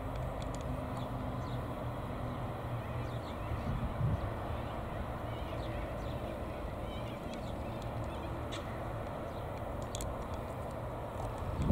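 Distant steady rumble of NR class diesel-electric locomotives hauling a passenger train across a long rail bridge, with birds chirping now and then.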